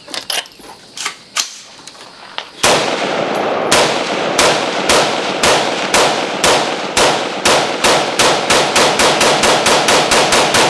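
Rapid semi-automatic fire from a 5.56 AR-style rifle. After a couple of seconds of light handling clicks, a string of shots begins and quickens to about three or four shots a second, firing without a jam.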